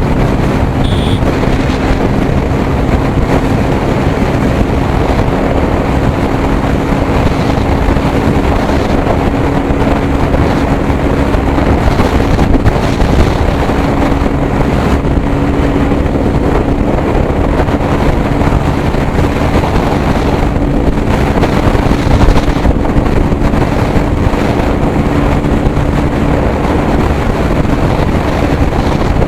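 TVS Apache RTR 200 motorcycle's single-cylinder engine running at a steady cruising speed, a constant drone, under heavy wind noise on the microphone from riding.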